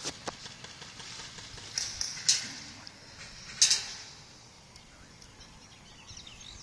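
A few sharp cracks a second or two apart, the loudest about three and a half seconds in, each trailed by a brief rustling hiss, then quiet outdoor background.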